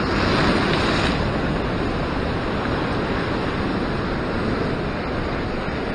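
Ocean swell breaking against the shore rocks and washing in as foaming surf, a steady rushing of water that is a little louder in the first second.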